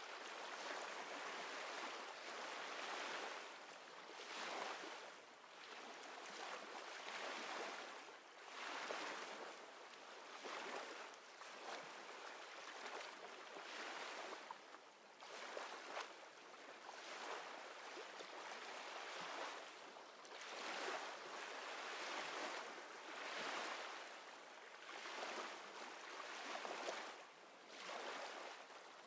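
Gentle sea waves washing in and out on a shore, the hiss swelling and fading about every couple of seconds.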